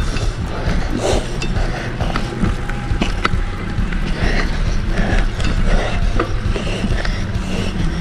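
Mountain bike being ridden over rough trail, its chain and parts rattling and clicking over a steady low rumble.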